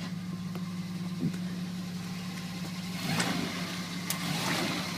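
Engine of an off-road vehicle running at a low, steady idle while rock crawling, with a few sharp clicks and knocks. About three seconds in it gets louder as the engine picks up and more rough noise joins in.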